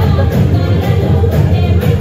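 A dance song playing loudly, with singing over a heavy, steady bass beat.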